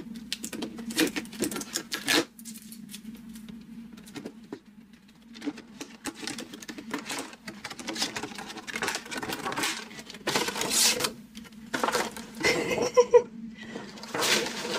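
Stiff clear plastic figure packaging crinkling and clicking as it is handled and pulled open, in several spells with short pauses between them.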